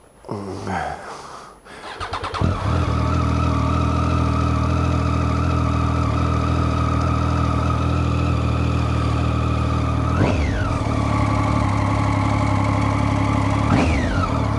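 Triumph motorcycle engine starting about two seconds in, then idling steadily, with two quick throttle blips, one around ten seconds in and one near the end. The engine has just had its first-year service and fresh lubrication.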